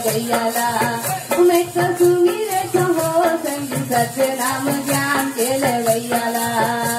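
Chhattisgarhi Panthi folk music: a sung melody over a held low note, with a quick, even rattling percussion rhythm.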